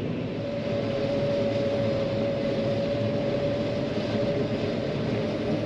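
John Deere 9500 combine running steadily while harvesting corn: an even machinery drone with a steady whine that comes in about half a second in.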